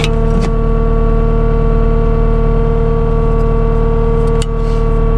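CAT 246D skid steer's diesel engine running steadily at an even pitch while the machine stands still, with a couple of faint clicks.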